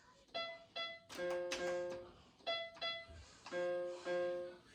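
Electronic notes played on a VTech KidiJamz toy keyboard: a short phrase of two quick notes followed by longer held notes, repeated about three times.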